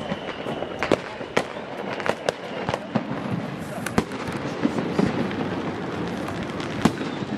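Fireworks going off all around: about a dozen sharp bangs and pops at irregular intervals over a steady background rumble and crackle.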